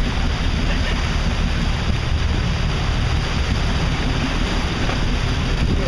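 Offshore sportfishing boat underway: a steady mix of wind buffeting the microphone and wake water rushing past the hull over a low rumble.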